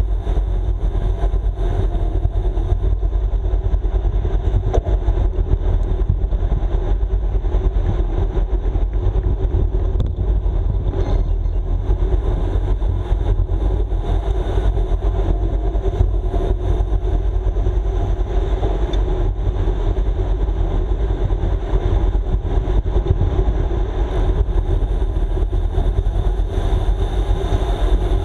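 Road bicycle riding at race speed: steady wind rush buffeting the camera's microphone, with tyre noise on the track's asphalt underneath.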